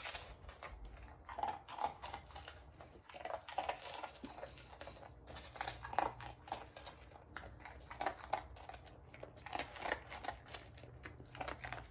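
A golden retriever puppy crunching small pieces of dry kibble off a hardwood floor, one piece after another in irregular crisp crunches.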